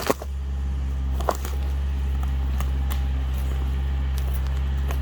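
Kioti tractor's diesel engine running steadily, with a sharp knock right at the start and another about a second later.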